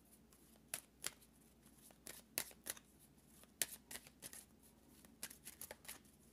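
A tarot card deck being shuffled and handled: faint, irregular soft snaps and taps of cards.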